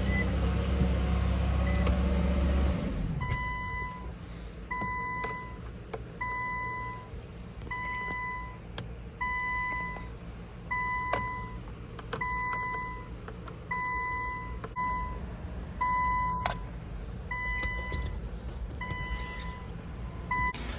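Infiniti Q50's in-cabin warning chime beeping over and over, evenly spaced, a little faster than one a second, with a few small clicks from work at the steering wheel. A steady low hum cuts off about three seconds in, just before the beeping starts.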